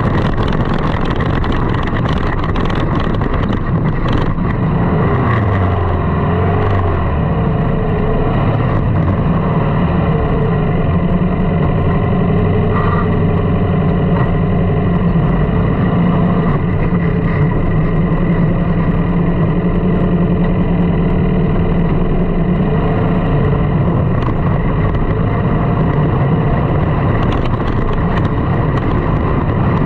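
Sand rail's engine running as it drives across the dunes, its pitch falling about five seconds in and then holding steady.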